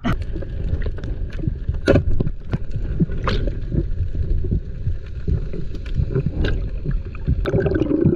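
Underwater water noise picked up by an action camera's housing on a breath-hold spearfishing dive: a steady low rumble and gurgle, broken by scattered clicks and knocks.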